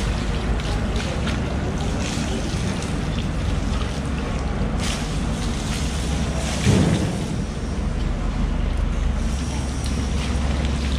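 Water splashing and running over a whole yellowfin tuna and the wet floor as it is rinsed, over a steady low rumble. A single dull thump about seven seconds in.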